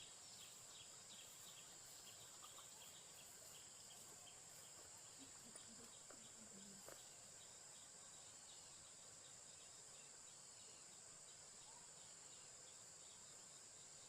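Near silence: faint outdoor ambience with insects chirping, a quick run of repeated short chirps through about the first half over a steady, high, faint insect hum.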